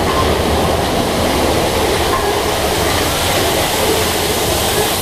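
Big Thunder Mountain Railroad mine-train roller coaster running on its track, heard from on board: a steady, loud rumble of wheels and rushing air.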